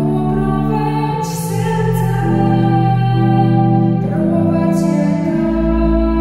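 A young woman singing a slow song in Polish into a microphone, holding long notes, over instrumental accompaniment of held chords; a deep bass note comes in about five seconds in.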